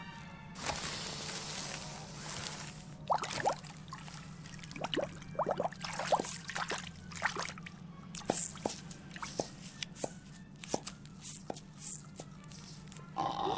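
Cartoon liquid sound effects: a brief rush of hiss, then a long run of irregular dripping blips that each rise quickly in pitch, over a steady low hum.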